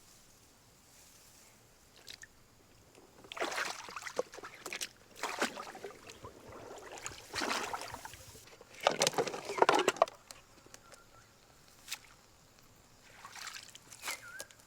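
Water sloshing and splashing in several short bursts, as of something being moved around in water, with quieter stretches between.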